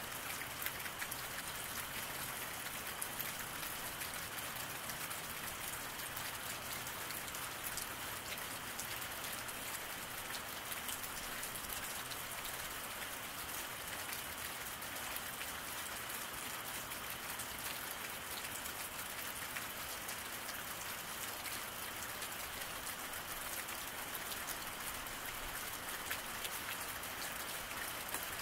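Steady rain falling on a wet road, an even hiss with the fine patter of individual drops.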